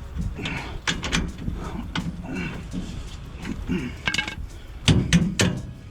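Irregular knocks and clanks of hand tools and metal parts as a truck's shock absorber is refitted, with the loudest cluster of knocks about five seconds in.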